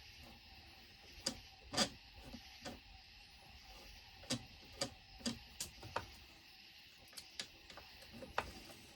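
Hand tools and metal chainsaw parts clicking and knocking at irregular intervals as the saw is dismantled, with one louder knock about two seconds in.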